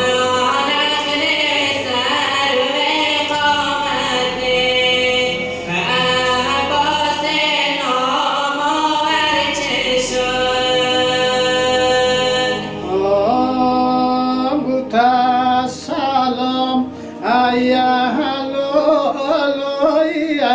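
Unaccompanied male voice chanting a Muharram mourning elegy (rowzeh) into a microphone, in long held and wavering notes. About two-thirds of the way through, the chant changes to a different recording, with shorter sung phrases.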